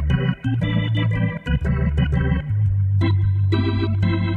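Hammond B3 organ through its Leslie speaker, with a reedy saxophone-like drawbar registration dropped down an octave: short, punchy chords in a jazz big-band style over a moving bass line.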